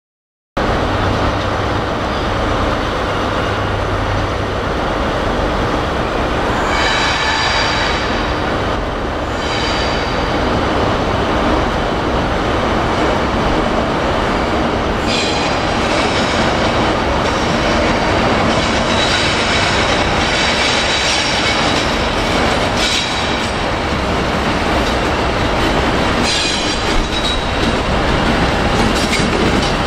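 Class 50 diesel locomotive with its English Electric 16-cylinder engine running as it draws slowly along the platform, a steady heavy rumble. High wheel squeal on the rails comes and goes several times.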